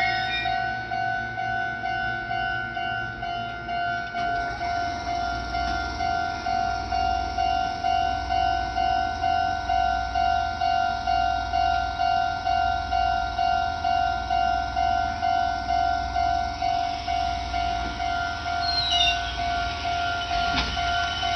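Japanese level-crossing warning bell ringing in a steady repeating pattern, a little over two strokes a second. Partway in, a Meitetsu Nagoya Main Line train rumbles through the crossing for about thirteen seconds, with a brief squeal near the end.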